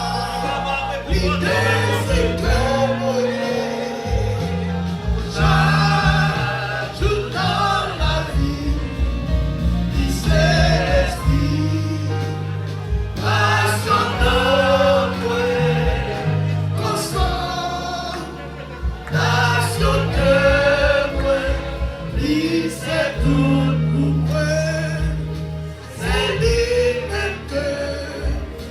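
A gospel song sung by several voices in the manner of a choir, over steady bass notes and a regular beat from the accompanying instruments.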